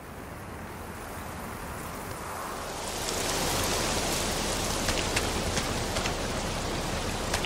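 Rain falling steadily, fading in and growing louder over the first three seconds, with a few sharp drop ticks in the second half.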